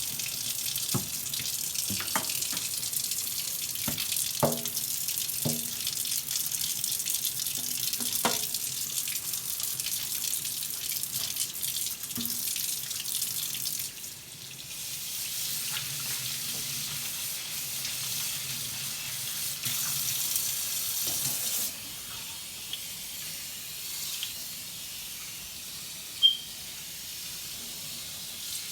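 Kitchen tap running into a sink during washing up, with a few knocks of pots or dishes in the first part. The water dips briefly about halfway and runs softer later on, with one sharp click near the end.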